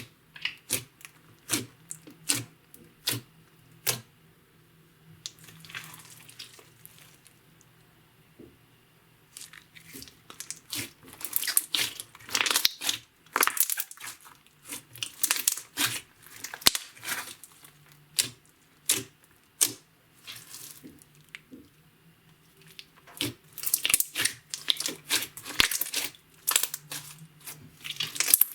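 Clear slime being kneaded and stretched by hand, giving sticky pops and crackles: a few separate pops at first, then dense runs of crackling about ten seconds in and again near the end.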